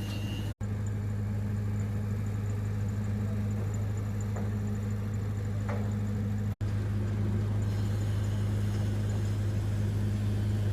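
Welding machine running with a steady low hum during the fill pass. The hum cuts out for an instant twice.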